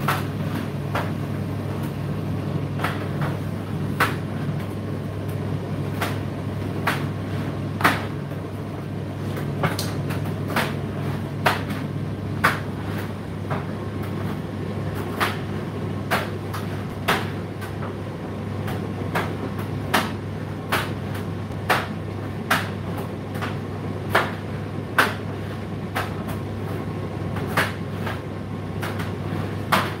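Indesit IDC8T3 condenser tumble dryer running mid-cycle: a steady low motor and fan hum, with sharp irregular knocks and clicks about once a second as the load tumbles in the turning drum.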